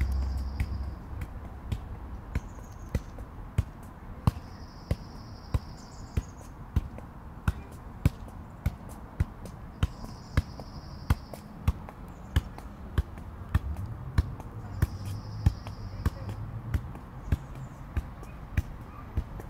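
A football being juggled on the feet and thighs: a steady run of soft kicks, close to two a second.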